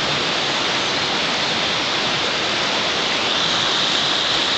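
River water rushing steadily over rocks through a fast, shallow riffle.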